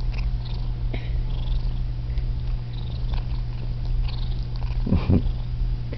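Domestic cat purring loudly and steadily, close to the microphone, while it grooms itself, with faint small licking ticks. There is one brief louder sound about five seconds in.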